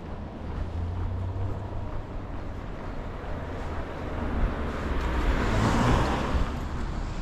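A car passing on the street, its tyre and engine noise swelling to a peak about six seconds in and then fading, over a low steady rumble of traffic.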